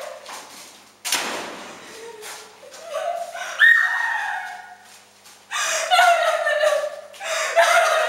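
A woman screaming and wailing in fright in repeated high-pitched cries, with a door slamming about a second in.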